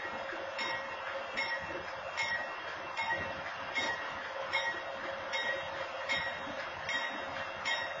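A railroad warning bell ringing at an even pace, a little more than once a second, over a steady hum while a diesel locomotive stands stopped at the crossing.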